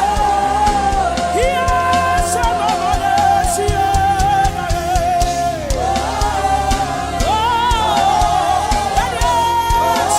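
Live gospel worship music: a singer holds long, wavering notes over a steady bass line and a regular drum beat.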